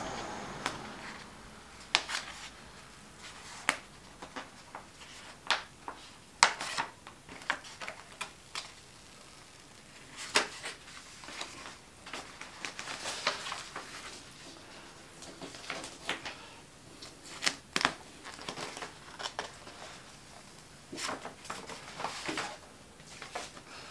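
Vinyl wrap film and its backing paper being handled and peeled off a panel: irregular crinkles, crackles and taps of plastic film and paper, with no steady rhythm.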